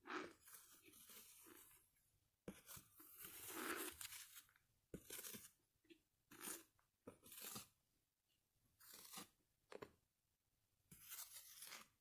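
Faint close-up crunching as a person chews a mouthful of white powdery food, coming in repeated bites of half a second to two seconds with short pauses between.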